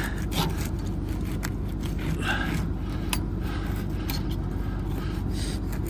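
Scraping and clicking of weeds being cut and pulled off the stalk rollers of a combine's corn head, over a steady low engine rumble. The weeds had wrapped tightly around the rollers and made them smoke.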